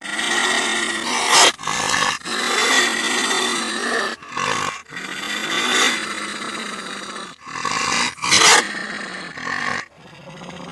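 An animal growling sound effect, used as the invented voice of a wolf spider: rough, drawn-out growls broken by short pauses, with two louder bursts about one and a half and eight and a half seconds in.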